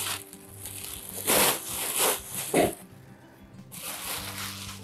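Packaging being rustled and pulled off a stainless steel deep sauté pan as it is unboxed, with two louder rustles about a second and a half and two and a half seconds in, over soft background music.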